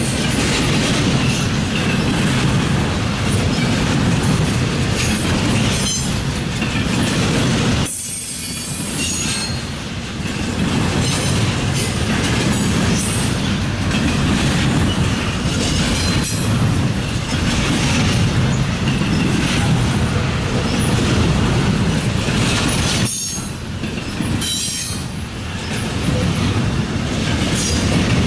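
Double-stack intermodal freight train rolling past: the steady running noise of its container well cars' wheels on the rails, easing briefly twice.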